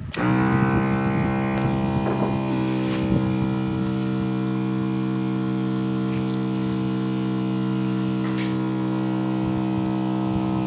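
An electric pump motor switches on and spins up, its hum rising briefly in pitch and then running steadily, feeding a spray wand.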